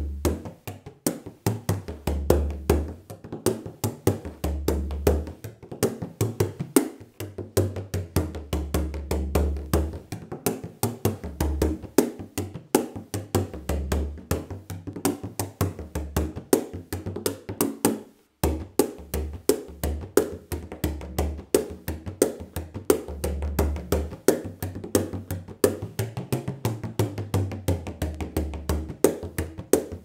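A 13-inch bodhrán with a goatskin head and birch-plywood shell, played with a wooden tipper in a fast, continuous rhythm of strikes. Its low tone shifts up and down in pitch as it is played, with a momentary break about eighteen seconds in.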